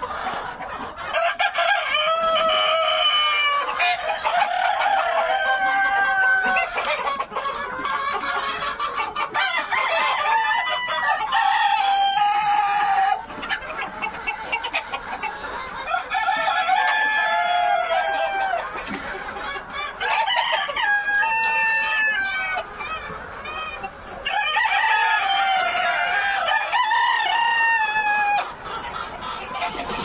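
A large flock of Sonali chickens clucking and calling, many birds at once in a continuous, overlapping din, with roosters crowing long, drawn-out crows several times over it.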